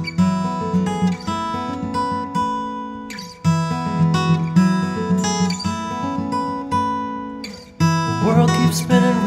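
Background music: an acoustic guitar strumming chords, with two brief breaks where the sound drops away, about three seconds in and near eight seconds.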